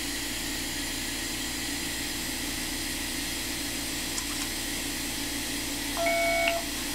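Steady whirring hum of the iTero digital scanner at work, with one short electronic beep about six seconds in, made of several tones at once, signalling that a scan segment has been captured.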